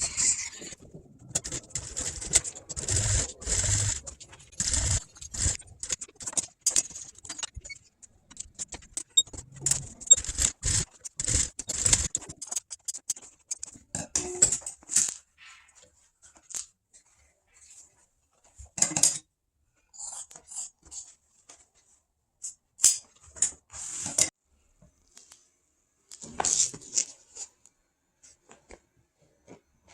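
Vinyl upholstery material being handled, with irregular rustles and scrapes and a few low thumps, busiest in the first dozen seconds and sparser later.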